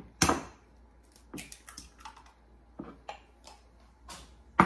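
Kitchenware being handled on a counter: a sharp knock just after the start, a scattered run of soft clicks and taps, and another sharp knock near the end.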